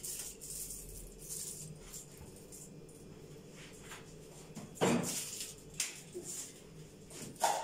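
Faint rustling and small clicks of things being handled, with a sharp knock or rattle about five seconds in and another near the end.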